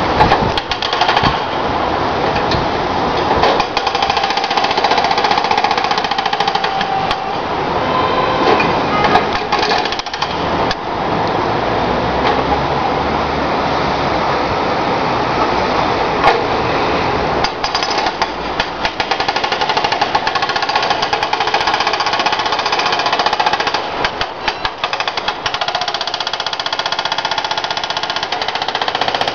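Hydraulic breaker on a Komatsu backhoe loader hammering continuously as it breaks up asphalt, with a couple of short let-ups partway through.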